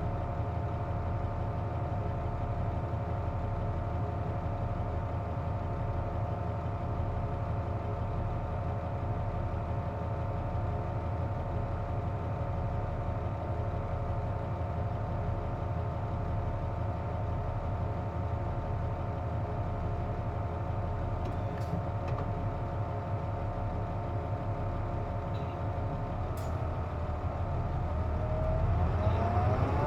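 Inside a KC-JP250NTN city bus, the engine idles steadily while the running air conditioning adds a steady whine, the abnormal noise this bus is known for. Near the end the engine revs up and the bus pulls away, with rising whining tones.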